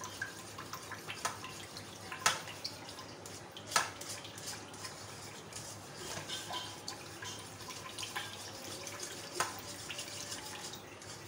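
Whisk stirring melted vanaspati ghee in a steel saucepan set in ice water, a continuous liquid sloshing as the fat is chilled and beaten to set into margarine. A few sharp clinks of the whisk against the pan, about three, stand out as the loudest sounds.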